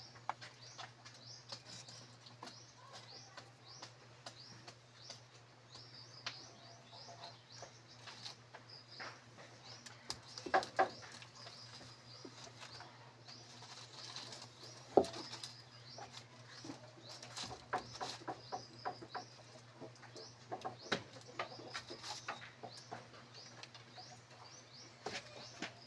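Small birds chirping over and over in quick short notes, with scattered sharp clicks and knocks of sticks being handled and laid on a small wood fire, and a faint steady low hum.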